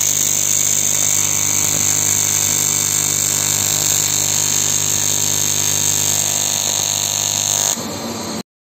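AC TIG welding arc buzzing steadily on cast aluminium, with a strong high-pitched hiss over a low hum. It drops slightly near the end, then cuts off suddenly.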